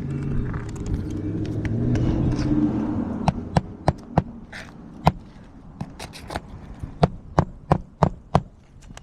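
A low engine hum swells and then fades over the first three seconds. It is followed by a string of about a dozen sharp, irregularly spaced clicks and taps.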